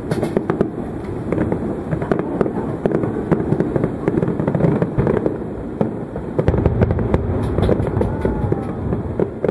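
Fireworks display bursting in quick succession: a dense run of sharp cracks and pops over a continuous rumble of booms, with a heavier rumble about two thirds of the way through.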